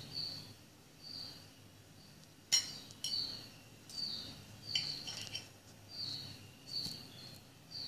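Metal knife and fork clinking and scraping on a ceramic plate while cutting an omelette, with a few sharp clinks, the loudest about two and a half seconds in. A short high chirp repeats in the background about every two thirds of a second.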